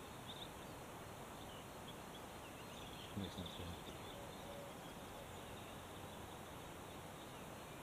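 Faint steady outdoor background noise with a few small bird chirps now and then, and a brief soft low sound about three seconds in.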